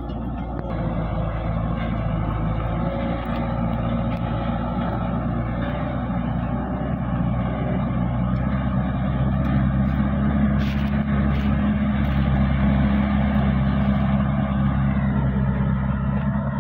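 Engine of a heavily loaded log truck working under load as it climbs a steep dirt slope: a steady low drone that grows a little louder about halfway through.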